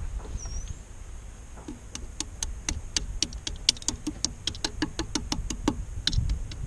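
Uncured refractory cement lining of a freshly fired homemade propane forge crackling and popping, a fast irregular run of sharp cracks, about five a second, that starts about two seconds in. This is a sign that the cement is not yet cured and is bubbling up. A low rumble runs underneath.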